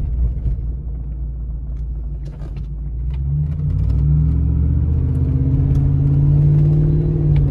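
Pickup truck engine and loud exhaust heard from inside the cab while driving: a low rumble at first, then from about three seconds in the engine pulls harder and settles into a louder, steady drone.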